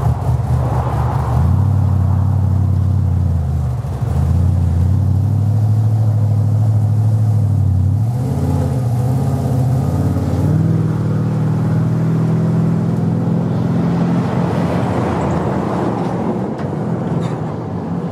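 Pickup truck engines running loudly as the trucks pull away, with a short dip in the engine note about four seconds in and the note stepping up about halfway through before easing off near the end.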